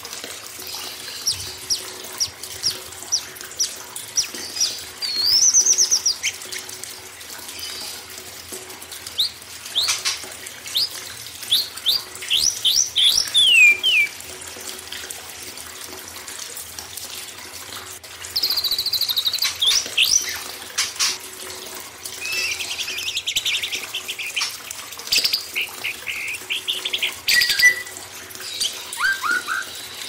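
A mix of cage songbirds singing, quick chirps, whistles and trills that come in bursts, over a steady background of running water, as in a song-training (masteran) track for white-rumped shama.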